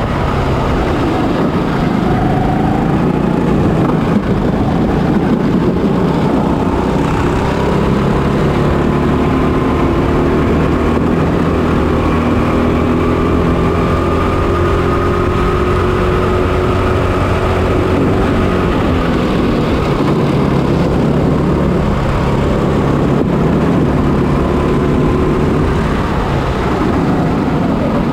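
Onboard sound of a Kombikart Eco's 6.5 HP, 200cc four-stroke kart engine (GX200 type) running under race load. Its note rises and falls as the kart speeds up out of corners and slows into them.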